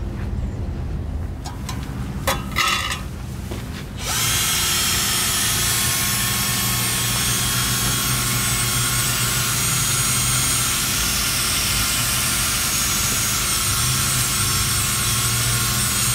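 Handheld drill with a paddle mixer stirring a can of two-component primer, running steadily from about four seconds in. Before it starts there are a few short knocks.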